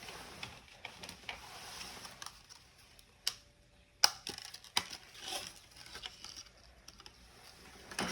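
Small tools and phone parts being handled on a workbench during a smartphone repair: a scatter of light clicks and taps, the sharpest about halfway through, with soft scraping in between.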